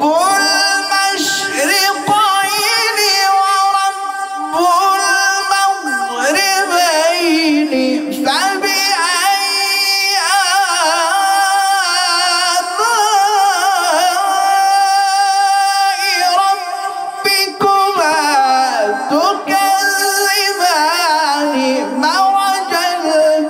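A man reciting the Quran in melodic tajweed style into a microphone: one long, ornamented line of held, wavering notes that slide up and down, with only brief breaks for breath.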